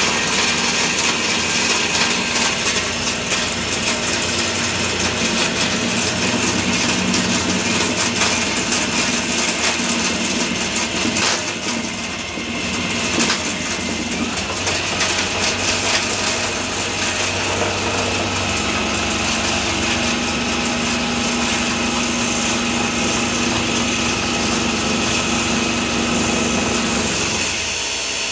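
Table saw running, its blade cutting a 4x4 teak post that a cordless drill turns slowly above it on a homemade table-saw lathe, shaving the post into a round dowel; a steady whirring cutting noise that eases near the end.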